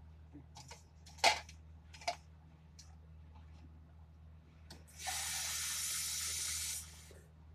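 Kitchen faucet running into a measuring cup for about two seconds, a steady hiss of water that starts about five seconds in and cuts off. Earlier, two sharp knocks about a second apart.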